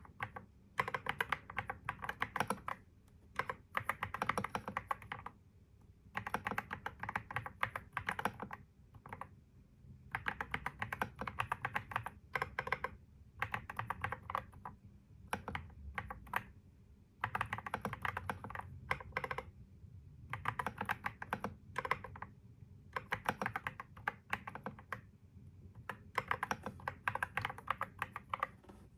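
Typing on a computer keyboard: quick runs of key clicks lasting a second or two, separated by short pauses.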